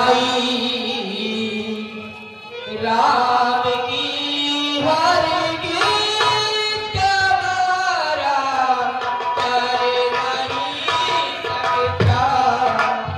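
A male voice singing a slow melody with long held, bending notes through a stage microphone and PA, accompanied by tabla.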